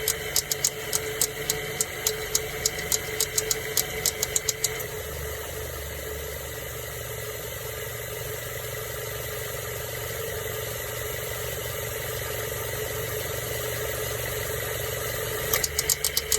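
2007 Mazda 3's AC compressor making a rapid, even clicking, about four to five clicks a second, over the engine's steady idle. The clicking stops about five seconds in, leaving only the idle, and starts again near the end.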